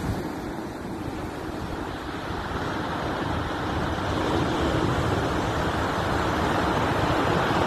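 Rough surf on a pebble beach: waves breaking and washing up over the stones, a steady rush of noise that dips about a second in and then builds in loudness.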